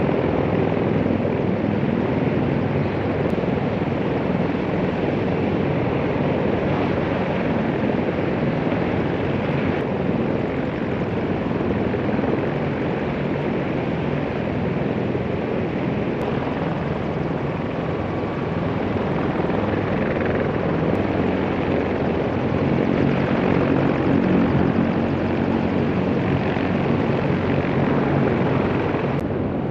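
CH-53E Super Stallion heavy-lift helicopter running: a steady, loud noise of rotor and turbine engines, even throughout.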